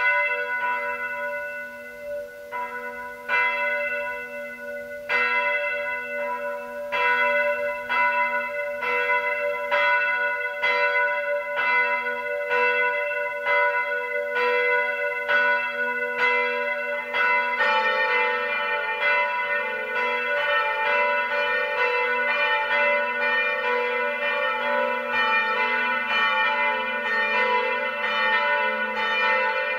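The swinging church bells of a monastery peal, tuned F-sharp, A, C-sharp, E, F-sharp, G-sharp, A, B, as they start to ring. A few bells strike at first, then settle to about one stroke a second. About 17 seconds in more bells join, and the sound thickens into the full peal.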